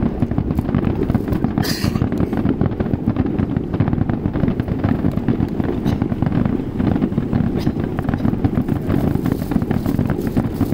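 Fireworks display: shells bursting in quick, dense succession, a steady run of booms and crackles over a continuous rumble, with a brief hiss about two seconds in.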